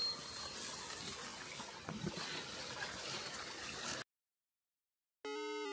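Faint steady outdoor background noise with soft rustles, cut off abruptly to silence about four seconds in. A short electronic music jingle starts near the end.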